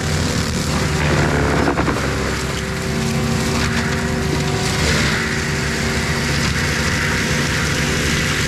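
ASV RT-120 tracked loader's diesel engine working hard under load while driving a Fecon forestry mulcher head through brush, a steady loud drone whose pitch shifts slightly a couple of times.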